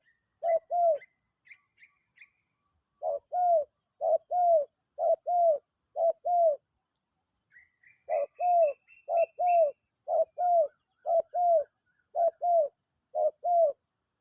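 A dove cooing in a run of paired short notes, about one pair a second, pausing briefly twice. A small bird chirps faintly and higher in the background near the start and again midway.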